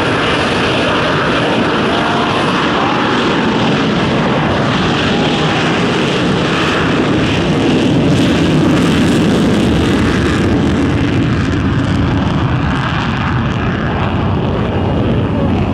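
Fighter jet taking off, its jet engines at full power on the takeoff roll: a loud, steady rushing noise that swells to its loudest about eight seconds in and then eases off a little as the jet pulls away.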